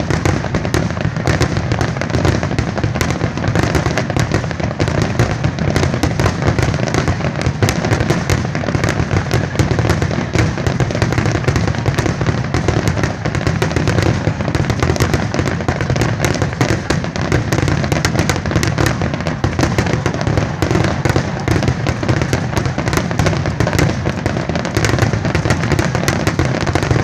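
A fireworks barrage: shells bursting in rapid, unbroken succession, so the booms and crackles merge into one loud, continuous volley with no gaps.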